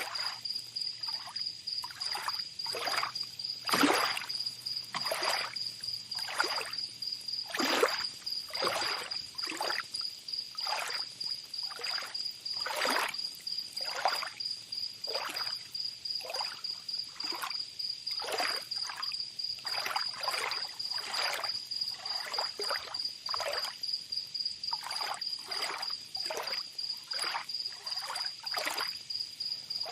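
Small waves or water lapping and splashing in quick, irregular washes, a few of them bigger, over a steady high insect trill.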